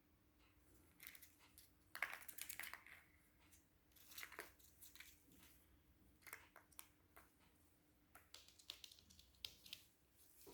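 Faint rustling and scattered sharp clicks in short irregular bursts, like paper or small objects being picked at, crinkled and torn.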